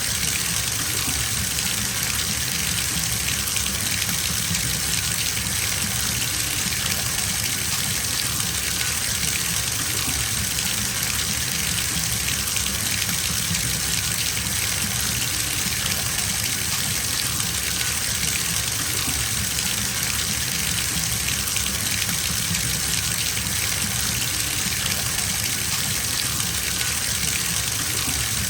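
Water running steadily from a bathtub tap into the tub as it fills, a constant splashing gush.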